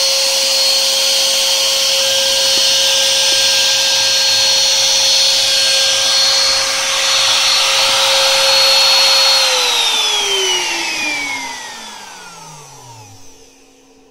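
Bosch Colt 1 HP palm router, serving as the spindle of a Chinese desktop CNC machine, running at a steady speed with a high whine. About nine seconds in it is switched off and winds down, its whine falling steadily in pitch and fading out near the end.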